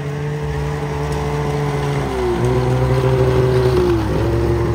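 A motor running steadily close by, its pitch dipping and recovering three times.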